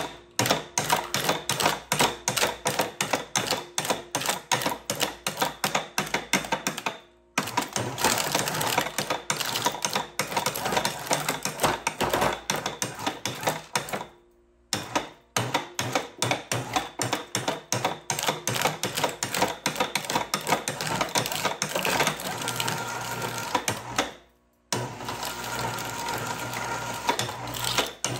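Precious Plastic shredder's steel blades chewing through aluminum cans: a fast, continuous run of sharp cracks and crunches of tearing can metal. It cuts out suddenly three times for a moment, and a steady hum shows under the crunching in the later part.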